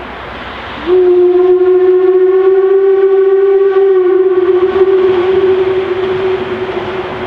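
Steam whistle of the narrow-gauge Mallet 0-4-4-0T locomotive 99 5901 sounding one long blast. It starts suddenly about a second in, holds a steady pitch for several seconds and then fades, over the steady noise of the approaching locomotive.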